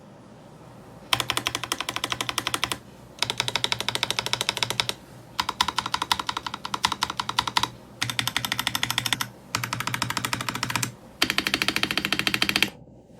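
Ajazz AK992 gasket-mount mechanical keyboard being typed on: six quick bursts of rapid keystrokes, each a second or two long, with short pauses between.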